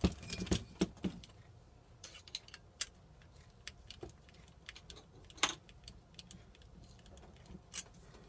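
Aluminium servo brackets and small bolts and nuts clinking and clicking against each other as they are handled and fitted together. A quick run of clicks in the first second, scattered clicks after, and one sharper knock about five and a half seconds in.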